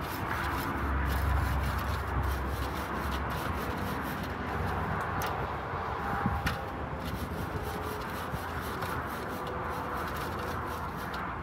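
Grill scraper rubbing and scraping back and forth across the metal grate of a small hibachi-style grill, with scattered light metallic clicks.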